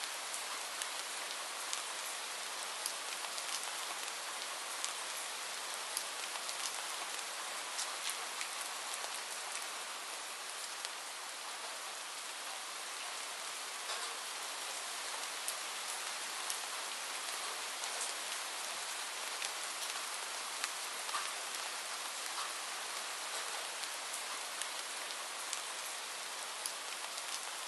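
Steady rain falling: an even hiss with frequent, irregular sharp ticks of individual drops.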